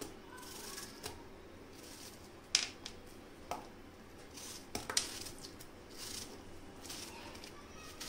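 Kitchen knife cutting watermelon into pieces: quiet cutting with a few sharp taps of the knife, the loudest about two and a half seconds in and again around five seconds in.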